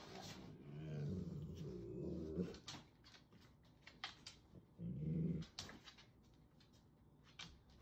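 A dog growling low in two bouts: a longer one about a second in and a short one about five seconds in. Sharp clicks come in between.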